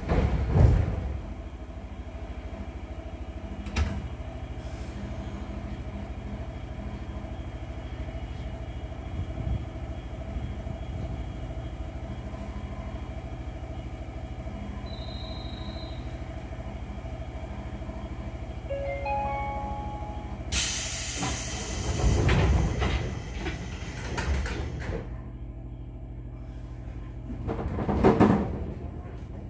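A 205-3100 series electric train standing at a station with its doors open, its equipment giving off a steady low hum. The air-operated doors clunk just after the start; near the middle a short run of rising chime tones is followed by several seconds of loud hissing. Near the end the doors slide shut with a loud thud.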